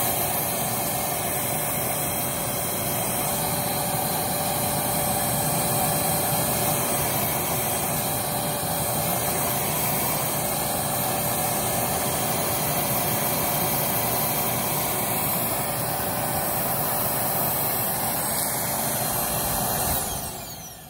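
Riccar R25S dual-motor upright vacuum running steadily in carpet mode, its suction motor and brush-roll motor both on, with a steady pitched whine over the airflow noise. The sound falls away about a second before the end.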